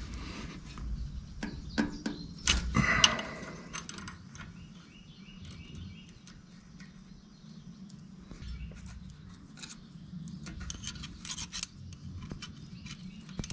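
Hand tools clinking against the valve train of a CAT D3 dozer's diesel engine: a wrench on a rocker-arm jam nut and a screwdriver on the adjusting screw while the valve clearance is set with a feeler gauge. A cluster of louder clinks comes about two and a half seconds in, then lighter scattered ticks.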